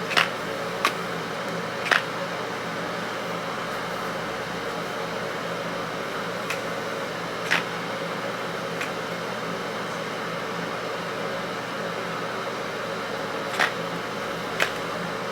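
Steady fan-like hum with about eight light, sharp clicks spread through it: a flat iron's plates clapping shut on the wig's hair.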